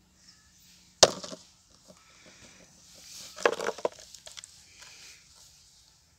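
A plastic drink bottle with a snake trapped inside, handled against brick: one sharp knock about a second in, then a short burst of crackling clicks of the plastic about three and a half seconds in.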